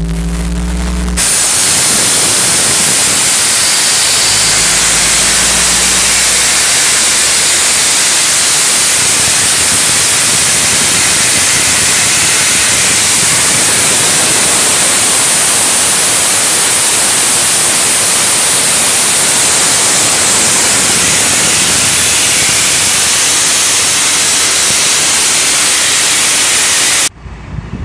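Compressed air blasting out of a Compair 400 cfm air compressor: a loud, steady hiss that starts abruptly about a second in and cuts off near the end.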